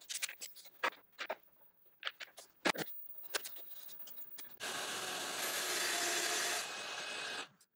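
Quick, scattered clicks and knocks of tools and the track rail being handled, then a track saw with a vacuum hooked up cutting through a sheet of 3/4-inch MDF: a steady, dense cutting noise that starts a little past halfway, eases slightly near the end and stops abruptly. The audio runs sped up, at 20x speed.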